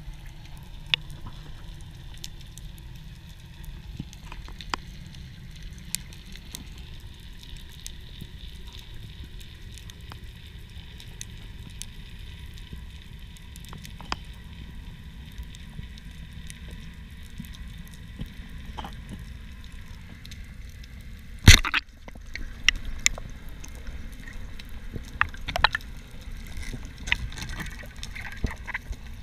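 Steady low underwater rumble with scattered sharp clicks. About two-thirds of the way in, a speargun fires with one loud sharp crack, followed by a run of smaller clicks and knocks.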